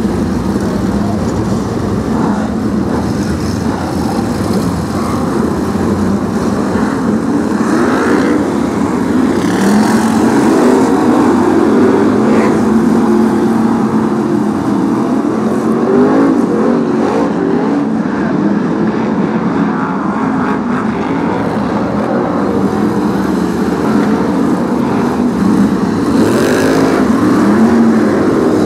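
A pack of BriSCA F1 stock cars' V8 engines racing round the oval, many engines running together at full throttle. Their pitch keeps rising and falling as cars pass and accelerate out of the bends.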